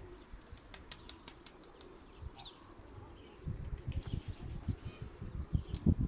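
Domestic pigeons' wings flapping in flight, starting faint and growing into a dense, louder flutter of rapid wingbeats from about halfway. In the quieter first half there are a few faint clicks and brief high chirps.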